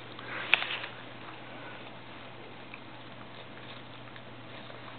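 A sharp knock about half a second in, then a Boston terrier faintly sniffing and nibbling at an apple slice on carpet, soft scattered ticks over low room noise.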